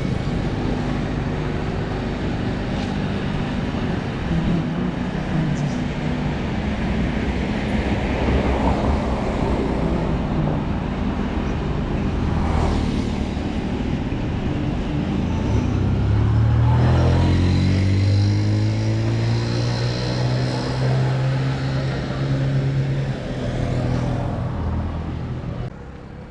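Road traffic: vehicle engines running amid road noise. About two-thirds of the way through, one engine rises in pitch as it speeds up, then holds a steady note.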